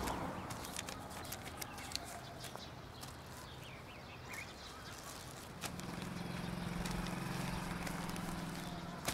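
Quiet street ambience with scattered light clicks and a few faint bird chirps. A little past halfway a low steady drone comes in and holds.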